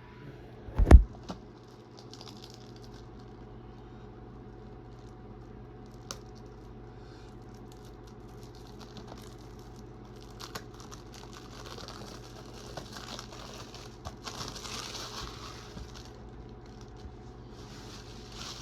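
Plastic wrapping on a DVD case being peeled off and crinkled, with scattered clicks and rustling that grows busier in the second half. A loud thump about a second in.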